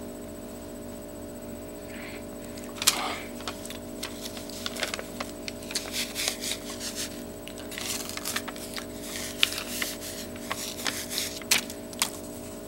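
Sock puppets and hands rustling and bumping close to the microphone in an irregular string of soft clicks and scrapes, which starts about three seconds in. A steady electrical hum runs underneath.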